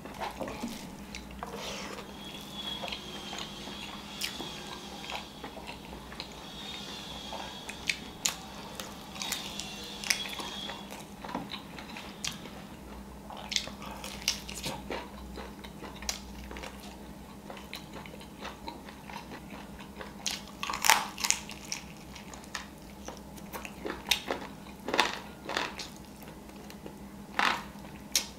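Close-up eating sounds: biting, chewing and lip-smacking as a man eats biryani and pan-fried chicken wings with his hands, an irregular run of wet clicks and smacks, with a few louder ones in the second half. A faint steady low hum lies underneath.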